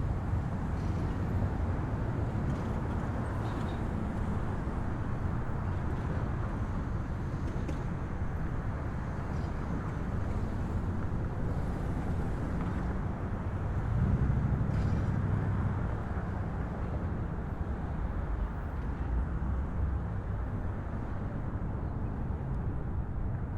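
City street ambience: a steady rumble of traffic, with a vehicle passing more loudly about two thirds of the way through.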